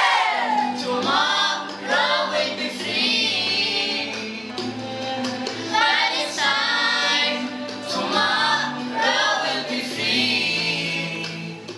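A group of girls singing together in chorus over steady low accompanying notes, fading out near the end.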